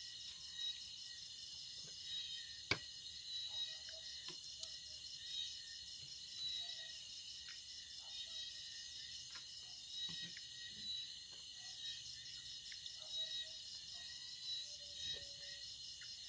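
A chorus of insects chirping in a steady, fast-pulsing high-pitched drone, with scattered faint clicks and one sharp tick about three seconds in.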